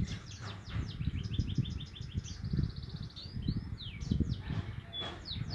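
Young white-headed munias (emprit kaji) practising their twittering song: strings of short high chirps and a quick trill about two and a half seconds in, over a low rumbling background noise.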